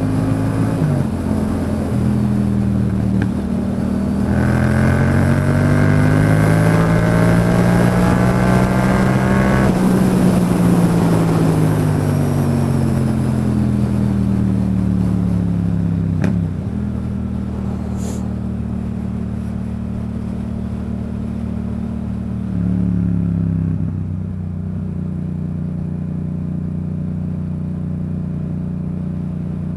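Yamaha MT-07's parallel-twin engine accelerating, its pitch rising for several seconds and then falling as the rider eases off. It then runs steadily, with a short rise and drop near the end.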